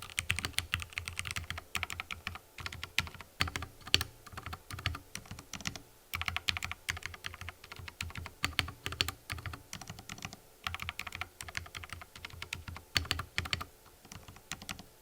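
Mechanical keyboard with fully lubricated Cherry MX Red linear switches (45 g) being typed on in quick runs of keystrokes, with short pauses between runs.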